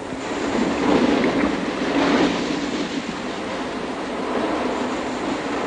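Sea surf washing onto a sandy beach: a rushing noise that swells about a second in and again near two seconds.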